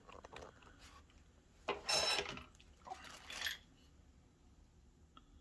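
Rustling and light clattering from handling the filter system's parts and packaging, in two short bursts about two and three seconds in, with a few faint clicks.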